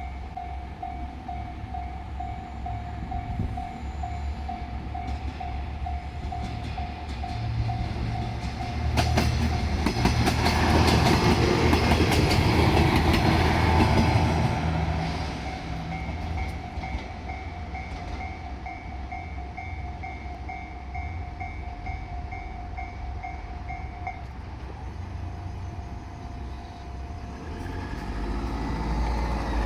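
Japanese level crossing alarm ringing in steady repeated pulses while a JR Shikoku Series 1500 diesel railcar passes over the crossing. The train's engine and wheels are loudest for several seconds near the middle, with clicks over the rail joints. The crossing bell stops about two-thirds of the way through, and a road vehicle's engine rumbles near the end.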